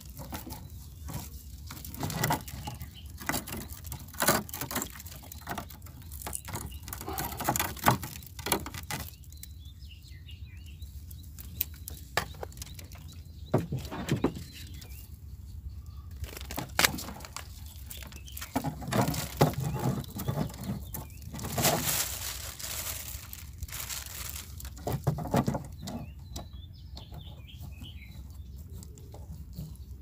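Wire-mesh crab trap being handled and baited with fish: irregular clicks and rattles of the metal frame and netting, with a few busier bursts of rattling in the second half.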